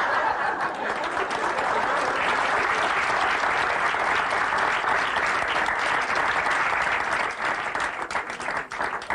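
Studio audience applauding, the clapping thinning out to scattered claps near the end.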